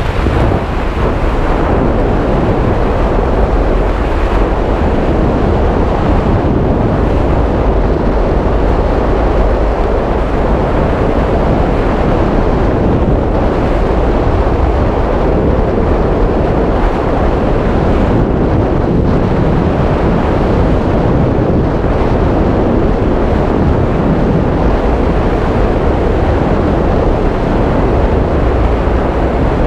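Freefall wind rushing over the camera microphone: a loud, steady buffeting noise at skydiving speed.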